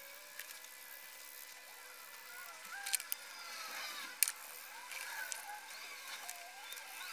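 Craft knife slicing and shaving a white foam handle blank, the foam squeaking in short, irregular chirps that slide up and down in pitch. Two sharp clicks come about three seconds in and another a little after four seconds.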